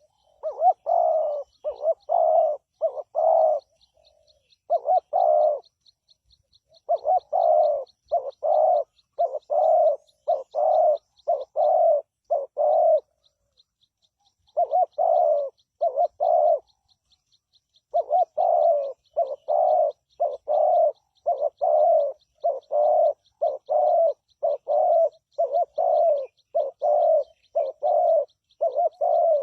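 Spotted dove cooing: runs of short, evenly spaced coo notes, about two a second, broken by pauses of a second or two. A faint, rapid, high ticking runs underneath.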